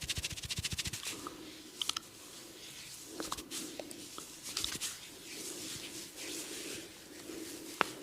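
Hands massaging an oiled head and neck: rapid rhythmic tapping, about eight or nine strokes a second, stops about a second in, giving way to rubbing and squishing of oily skin and hair broken by a few sharp clicks, the loudest near the end.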